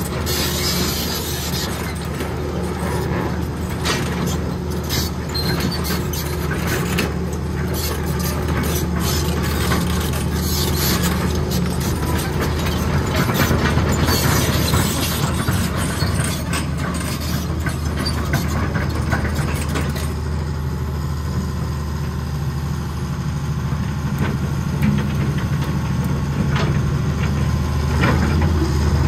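Diesel engine of a Hitachi Zaxis 210K hydraulic excavator running steadily at idle, a low even drone, with scattered clicks and knocks in the first half.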